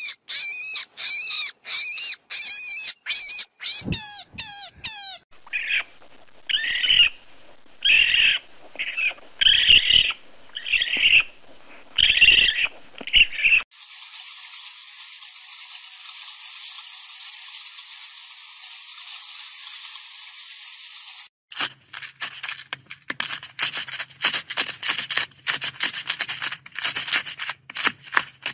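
A run of different animal calls one after another: quick squeaky calls that bend in pitch, then slower calls about once a second, then a steady hiss, then rapid chirps and clicks over a low hum.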